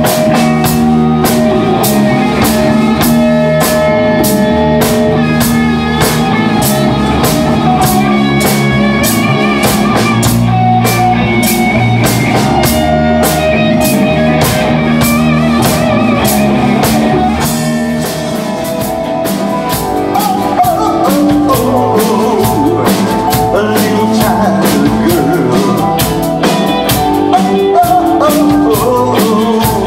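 Rock band playing loudly: electric guitars over a steady drum-kit beat, with a singer. It drops back briefly a little past halfway, then comes up again.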